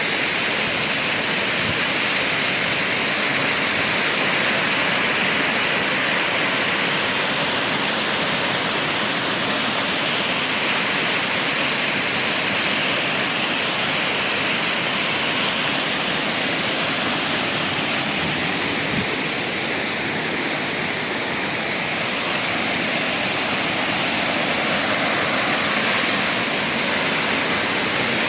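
Waterfall: a steady, loud rush of falling water, easing slightly about two-thirds of the way through.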